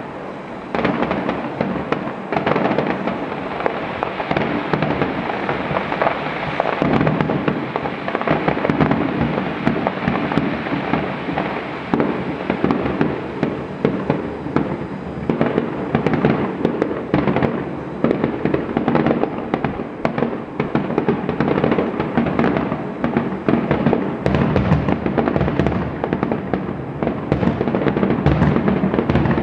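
Fireworks going off in a dense, continuous string of crackles and bangs with no pause.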